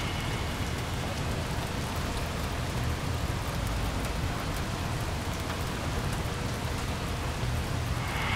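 A steady hiss over a low rumble, with faint scattered crackles throughout.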